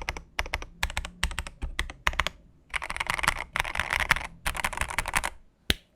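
Typing on a mechanical keyboard: groups of sharp key clacks, with a dense run of rapid keystrokes in the middle and a few single presses near the end.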